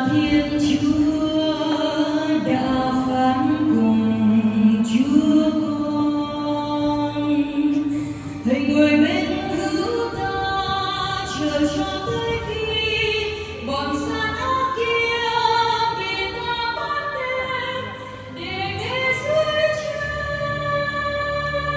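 Choir singing a hymn at Mass, amplified through the church's sound system, in long held phrases with short breaths between them about every five seconds.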